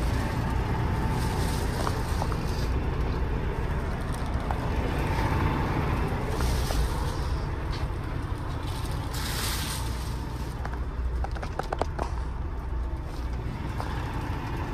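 Kenworth T680 semi-truck's diesel engine idling, heard as a steady low rumble inside the cab, with a few light clicks and rustles of handling near the end.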